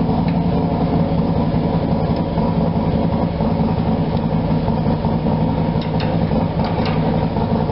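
Steady, even machine hum, like an engine running, with a few faint light clicks about six seconds in.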